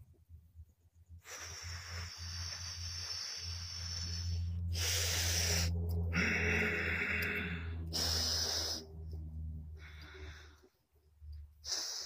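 A man breathing hard and labored close to the microphone: a series of loud, rasping breaths, each about a second or more long with brief pauses between, the sound of someone struggling for breath.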